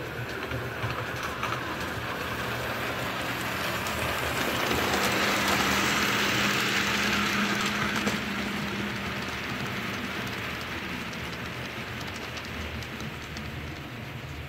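HO scale model train of loaded ore hopper cars rolling past on the layout, its metal wheels clicking along the track. The sound swells to its loudest about halfway through, with a steady hum at the peak, then fades as the end of the train goes by.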